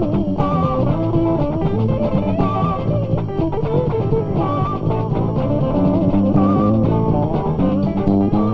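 Guitar-led rock music playing.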